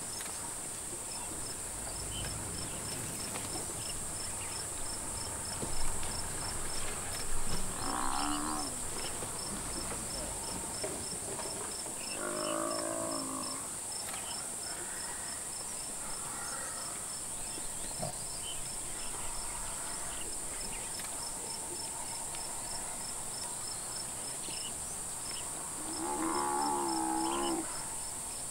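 Cape buffalo bellowing in distress as lions pull it down: three calls, the last the longest at about two seconds. Behind it a steady high insect buzz and the regular, evenly spaced chirps of a cricket.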